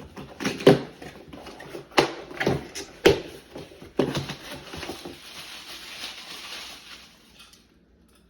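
Packaging being handled and unwrapped from a bow riser: a run of sharp crackles and knocks, then a longer steady rustle that stops shortly before the end.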